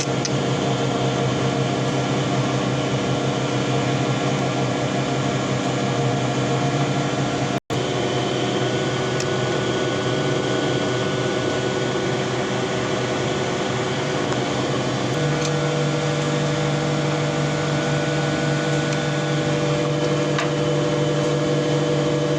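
A motor running with a steady hum. It breaks off for an instant about a third of the way in, and the hum changes pitch about two-thirds through.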